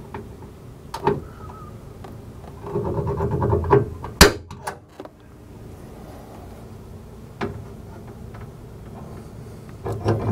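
A hand punch pressed against the underside of a sheet-metal car hood to mark a drilling point: light clicks and scraping as the tip is set, then two sharp metallic snaps about four seconds in, the louder first.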